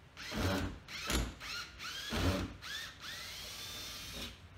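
Red cordless drill run in several short bursts, its motor whine rising with each squeeze of the trigger, then held for a steadier run of about a second before stopping. The bit is working at screws in a wooden ledger board.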